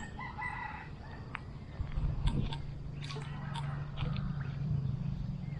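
A bird calls briefly near the start. About two seconds in, a steady low drone sets in, with scattered faint clicks.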